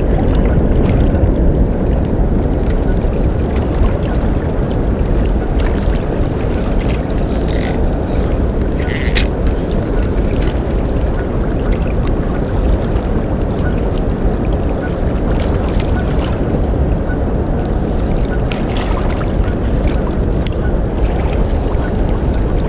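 Steady rushing noise of water from a dam spillway's tailwaters, mixed with wind rumbling on the microphone, with a few brief clicks.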